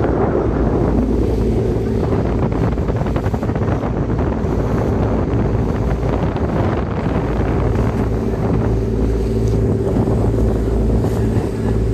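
A boat engine running steadily with a low hum, under wind buffeting the microphone and the wash of water.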